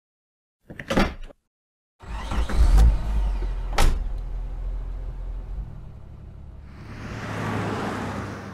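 Car sounds: a door clicks about a second in, then a car engine starts with a deep rumble, a door slams shut just before four seconds, and a rising rush of street traffic swells near the end.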